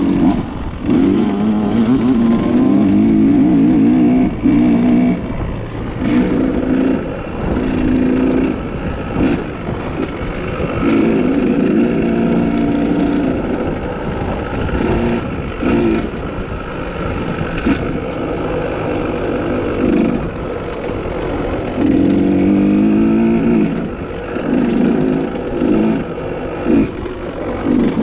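Dirt bike engine under way on a trail, the throttle opened and closed in surges so the engine note repeatedly rises and falls.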